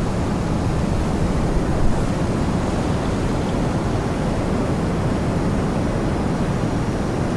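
Steady low rumble of a car driving on an asphalt road, tyre and engine noise heard from inside the cabin, with a brief bump about two seconds in.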